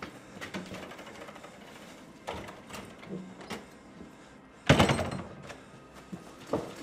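Scattered knocks and shuffling, then a loud bang that dies away over about half a second a little under five seconds in, and another sharp knock near the end.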